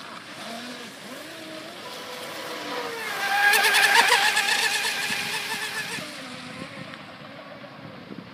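Electric whine of a homemade plywood RC hydroplane's 3180 KV brushless motor running at speed. It builds as the boat speeds past close by, is loudest about four seconds in, then fades as the boat pulls away.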